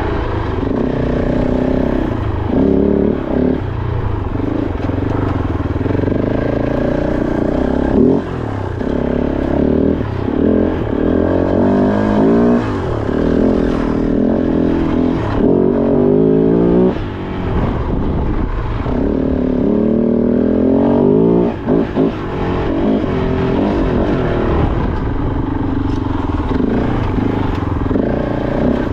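Kove 450 Rally's single-cylinder engine revving up and falling back again and again as the motorcycle is ridden over rocky single track. It has repeated rises in pitch, each cut off by a throttle roll-off or a shift, with some clatter from the bike and the rocks underneath.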